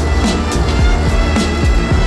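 Music with a steady drum beat and bass.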